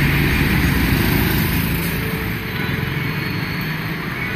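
Street traffic noise with motorbikes going by, over a steady low rumble.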